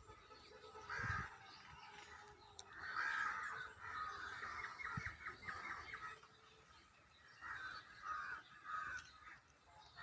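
Birds calling in several bouts, the longest with a quick run of repeated notes in the middle.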